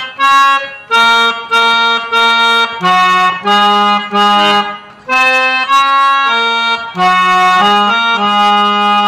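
Harmonium played by hand: a slow bhajan melody of held reed notes, one after another with short breaks between them.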